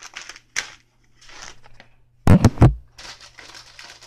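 Plastic instant-noodle wrapper crinkling as it is handled, with a loud bump a little past halfway.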